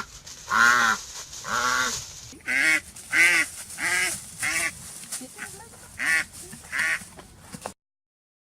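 A duck calling over and over: about eight loud, pitched calls of about half a second each, coming less than a second apart, cutting off suddenly near the end.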